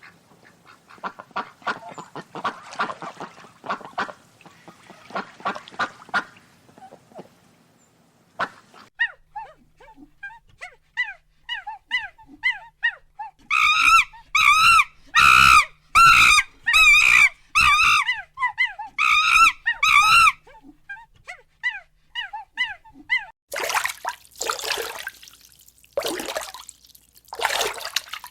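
Ducks quacking: a stretch of short, rapid calls, then louder repeated wavering quacks in the middle. A few noisy bursts follow near the end.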